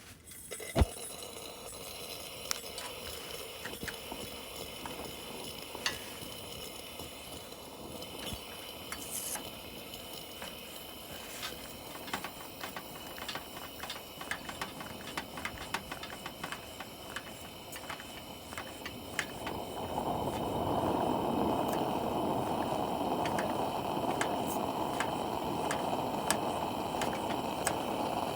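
Food sizzling in a hot pan: a steady hiss with many small spitting pops, getting louder and fuller about two-thirds of the way in.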